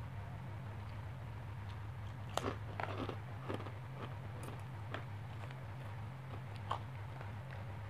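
Close-up mouth sounds of chewing food, with a cluster of crisp clicks and crunches about two and a half to three and a half seconds in and a few single ones later. A steady low hum runs underneath.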